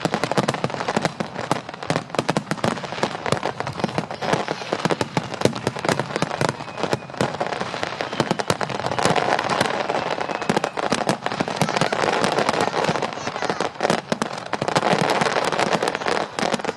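Fireworks display: a dense, continuous barrage of rapid pops and bangs from bursting shells, thickest about nine seconds in and again near the end.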